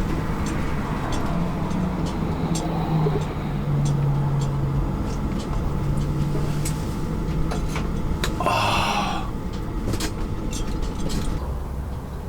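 Strong wind rumbling steadily against the microphone and camper, with a low steady hum through the middle, scattered light clicks, and a short hiss about eight and a half seconds in.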